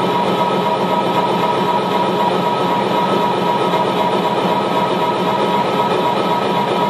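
Live minimalist electronic music: a loud, steady, dense drone built from layered, phase-shifting short loops, a noisy wash with several held tones running through it and no breaks.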